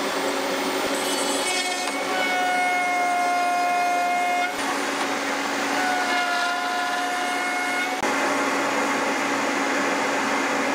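Table-mounted router running steadily while a small board is fed over the bit twice, routing two grooves. During each pass, of about two to three seconds, a whining tone rises above the motor noise.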